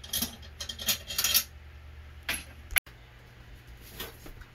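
Metal clinking and rattling in a few short bursts as tools and hardware are handled while an RV rooftop air conditioner is being swapped out, ending with one sharp click nearly three seconds in.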